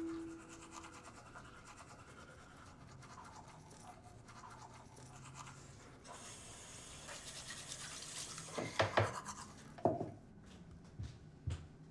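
Manual toothbrushes scrubbing teeth, a quiet rapid scratching that grows stronger past the middle, with several sharp knocks about two-thirds of the way in and a few lighter ones near the end.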